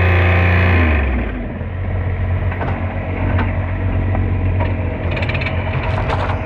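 Diesel garden tractor engine running at high revs, then throttled back about a second in to a steady lower run, with scattered metallic clicks and rattles later on.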